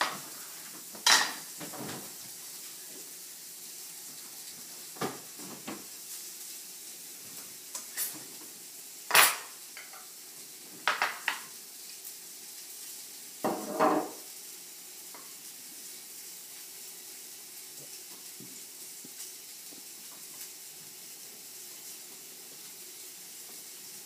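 Steady sizzle of steak and potatoes frying in pans, with scattered clinks and knocks of dishes and utensils through the first fourteen seconds, the loudest about nine seconds in.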